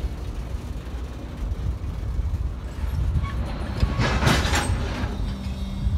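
Freight train of tank cars rolling slowly past, with a steady low rumble of wheels on rail. A short hiss-like burst comes about four seconds in, and a steady low hum starts near the end.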